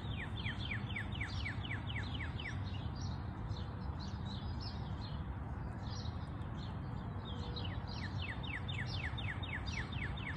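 A songbird singing a fast trill of repeated down-slurred notes, about five a second, once near the start and again near the end. Fainter chirps from other birds and a steady low background noise run underneath.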